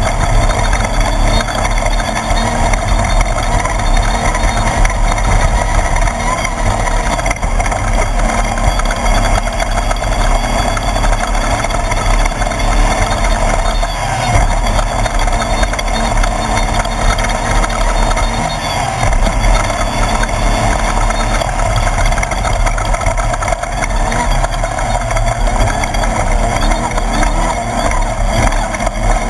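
Class 1/2-1600 desert race buggy's air-cooled VW 1600 engine running steadily at speed, with a dense rush of road and wind noise.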